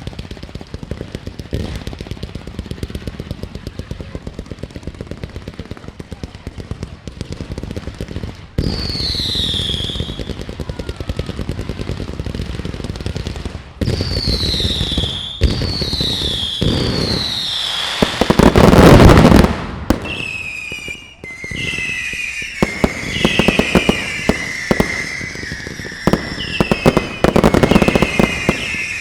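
Fireworks display: a rapid string of pops and crackles from a multi-shot cake, then falling whistles from about eight seconds in. Near the middle comes the loudest moment, a dense burst of explosions. After that, a flurry of whistling fireworks fires repeatedly, with crackling between them.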